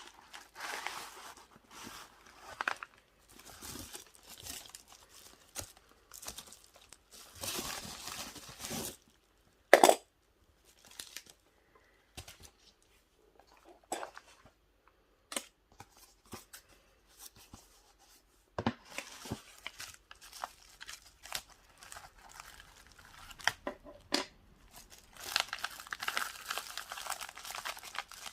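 Packaging being unwrapped and handled: bursts of crinkling and tearing with scattered clicks and knocks, the loudest a sharp click about ten seconds in.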